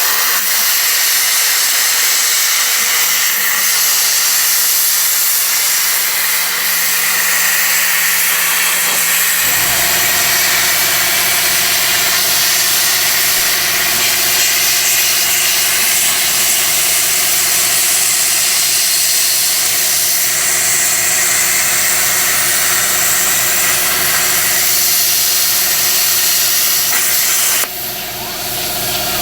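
Plasma cutter torch on a homemade CNC table cutting steel, with a loud steady hiss. About nine seconds in, a steady machine hum with several fixed tones joins the hiss and runs on.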